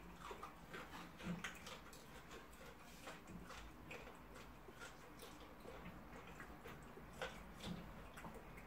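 Faint eating sounds: chewing and lip smacks with light clicks of a fork against a plate, an uneven scatter of small clicks.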